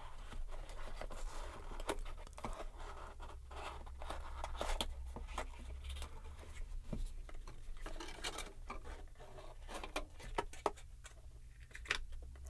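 Cardboard and paper packaging being handled and opened by hand: irregular scraping and rustling with many small taps and clicks as the box is worked open.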